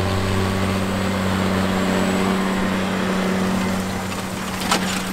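John Deere 9620T track tractor's 12.5-litre turbocharged diesel engine running steadily under load as it pulls a reel disk through the soil, a constant low hum. A couple of sharp clicks come near the end.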